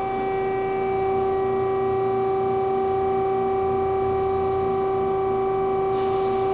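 Hydraulic pump motor of a JMT WL 460DSAR band saw running at idle: a steady, pitched hum.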